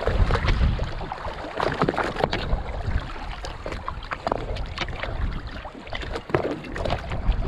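Choppy sea water slapping and splashing against the side of a boat's hull in rough water, with a low wind rumble on the microphone and scattered sharp splashes.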